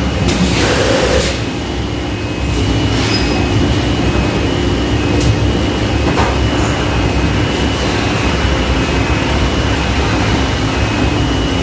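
Steady drone of factory machinery with a constant low rumble and hum, and a short hiss about half a second to a second in.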